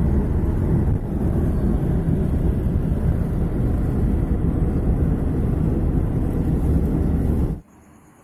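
Small boat's engine running under way, with heavy wind buffeting on the microphone: a loud, steady low rumble. It cuts off abruptly near the end, leaving a faint hiss.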